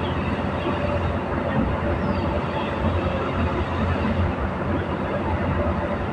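Steady low rumbling outdoor noise, with a few faint short high chirps about two seconds in.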